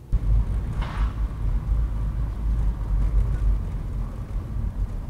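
Loud, uneven low rumble of a car on the move, heard from inside the cabin, starting abruptly, with a short hiss about a second in.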